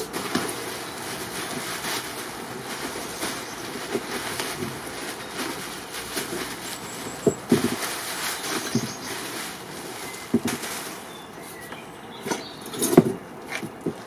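Plastic packaging wrap crinkling and rustling as it is pulled out of a cardboard box, with cardboard flaps scraping and a few knocks. The rustling thins out about eleven seconds in, followed by a short cluster of knocks as a tyre is lifted out.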